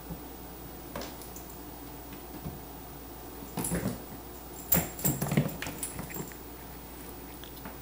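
Puppy and large tabby cat wrestling on a hardwood floor: a short flurry of knocks and scrabbling paws about halfway through, with the puppy vocalizing briefly.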